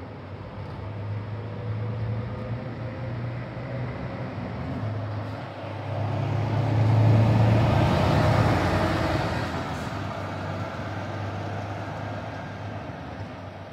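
A bus's diesel engine running as it passes close by, the engine hum and road noise growing louder to a peak about halfway through and then fading away.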